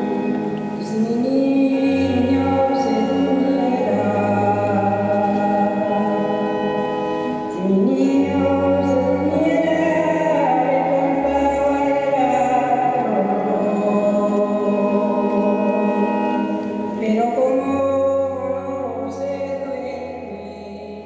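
Slow choral chant in long held notes that glide from pitch to pitch over steady, sustained low drone notes, fading out near the end.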